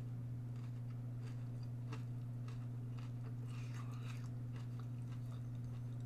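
A person chewing crunchy breadcrumb-coated vegan chicken-free southern fried strips, dry from being cooked a little too long, with scattered crunching clicks and a denser stretch of crunching about halfway through. A steady low hum lies under it.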